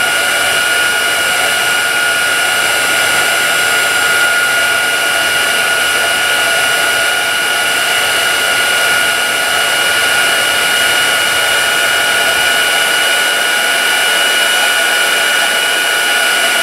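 Handheld embossing heat tool running steadily, its fan blowing with a constant high whine, held over embossing powder to melt it.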